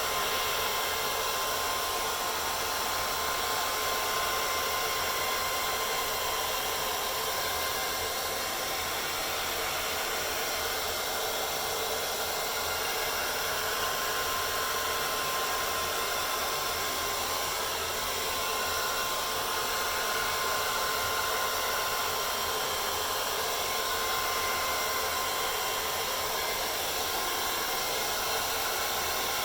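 Handheld hair dryer running steadily: an even rush of blown air with a thin, steady whine through it.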